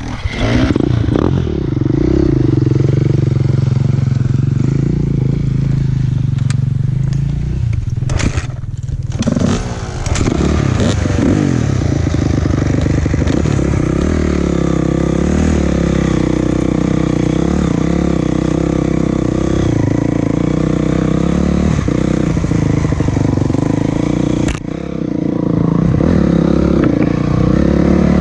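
A vehicle engine running under load along a rough trail, its pitch rising and falling as the throttle changes, with clattering over the ground. The engine note drops off briefly twice, about a third of the way in and near the end.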